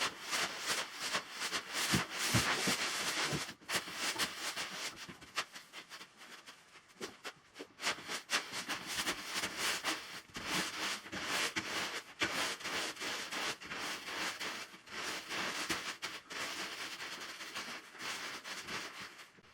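Rustling and crunching: a dense run of small crackles over a hiss, loudest in the first few seconds and dropping somewhat after about five seconds.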